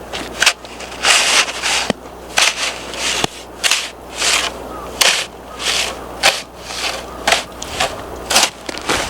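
Wood bonfire crackling, with irregular sharp pops between short hissing bursts of crackle.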